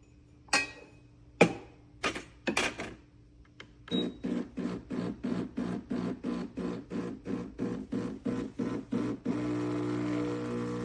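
A few sharp clicks and knocks, then an espresso machine's pump starts with a rapid pulsing of about four beats a second. About nine seconds in, the pump settles into a steady hum as it runs continuously to pull the shot.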